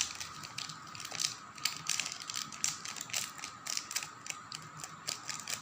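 Dry strawberry Simba cereal pieces being poured from the sachet into a bowl, a quick irregular run of light clicks and ticks as they land.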